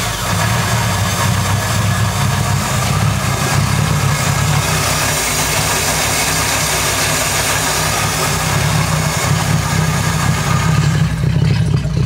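Carbureted boat engine idling steadily in neutral just after starting, running again on a newly fitted fuel pump.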